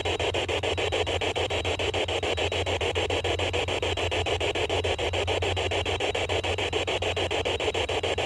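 Steady rhythmic static that pulses many times a second over a low steady hum.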